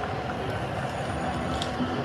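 Casino floor din of slot machine tones and jingles, steady throughout, with a small clink about one and a half seconds in.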